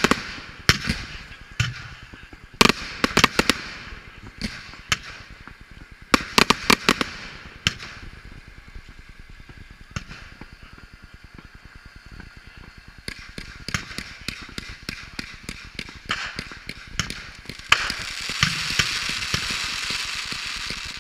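Fireworks display: clusters of sharp bangs as aerial shells burst, then a run of rapid crackling about two thirds of the way in. Near the end a loud steady hiss sets in, with more bangs over it, as comets climb and a ground fountain sprays.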